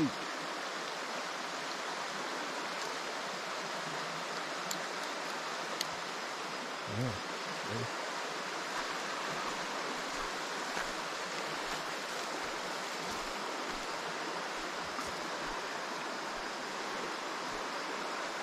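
Creek water flowing steadily: an even rush with no change in level.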